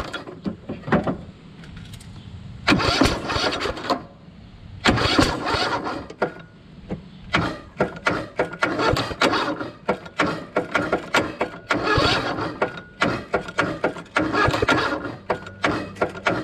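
Lawn tractor's single-cylinder engine being cranked over again and again in bursts of about a second each without catching. The owner suspects the rocker arms have come off the valves.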